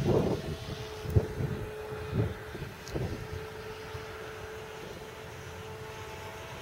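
Brushless electric motor and propeller of a Multiplex FunCub RC plane in flight, a steady even whine held at one pitch. A few low buffets come in the first three seconds.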